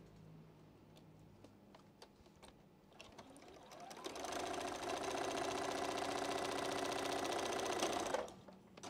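Juki domestic sewing machine stitching a patchwork seam. After a few light clicks of fabric being set under the foot, the machine speeds up about three and a half seconds in, runs at a steady stitching speed for about four seconds, and stops shortly before the end.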